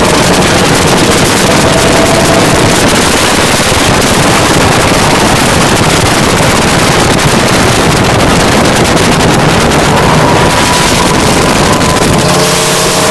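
Speedboat engines running at speed, loud and steady, with wind buffeting the microphone and water rushing past the hull.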